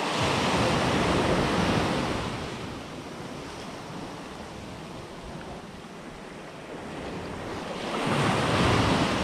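Sea surf breaking and washing up a beach, in two swells: one at the start that fades out about three seconds in, and another building near the end.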